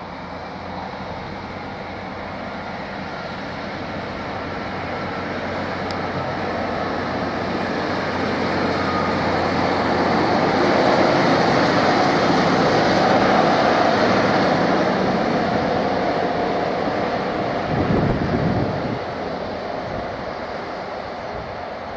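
Two coupled British Rail Class 153 diesel multiple units approach and pass, their underfloor diesel engines and wheels on the rails running steadily. The sound grows louder, is loudest about halfway through, then fades.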